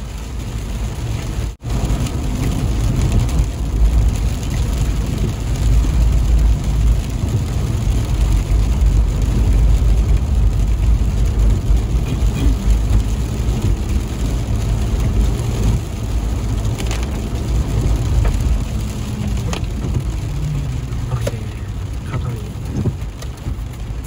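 Car driving on a wet road in the rain, heard from inside the cabin: a steady low rumble of engine and tyres with a hiss of water and rain. The sound cuts out for an instant about a second and a half in, and the rumble grows louder a few seconds later.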